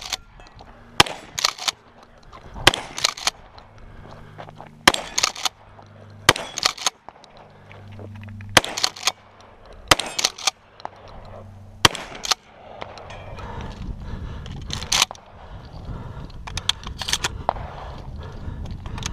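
Remington 870 pump-action shotgun firing about seven shots, one every one and a half to two seconds, each followed shortly by a fainter clack as the pump is worked to eject the hull and chamber the next shell. A few lighter clacks near the end.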